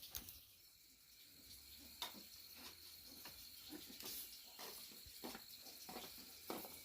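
Near silence: faint scattered taps and knocks, with a thin steady high-pitched tone setting in about two seconds in.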